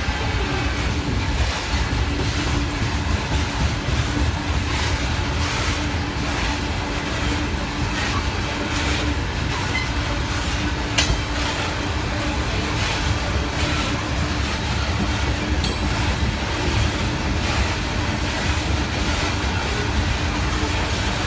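Coal hopper cars of a freight train rolling past, a steady rumble of steel wheels on rail with irregular clicking over the rail joints. A faint steady tone runs through it, and there is one sharp clank about 11 seconds in.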